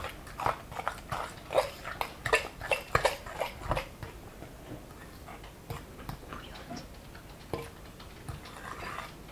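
Hand whisk beating cooled, set crème pâtissière in a glass bowl to loosen it: quick clicks and scrapes of the wires against the glass, fast over the first few seconds, then sparser.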